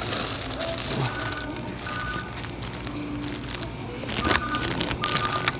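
Shop ambience: a steady hum of background noise with a thin electronic melody of short held notes and scattered clicks of handling.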